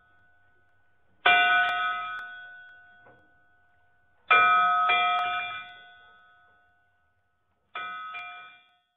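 A bell struck three times, about three seconds apart, each stroke ringing and fading away; the third is shorter and stops sooner.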